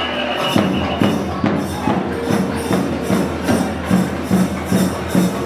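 Festival procession music: drums beating a steady rhythm about twice a second, with a held melodic tone over them.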